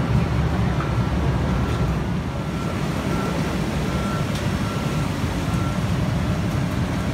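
Steady low rumble of airport ramp machinery around a parked airliner, heard from the jet bridge. Over it a short high warning beep repeats about every three-quarters of a second, like a ground vehicle's reversing alarm.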